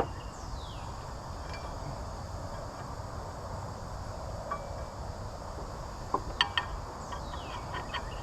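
Steady low background hum with a few light metallic clinks, several close together a little past the middle, and two high whistles that fall in pitch, one near the start and one near the end.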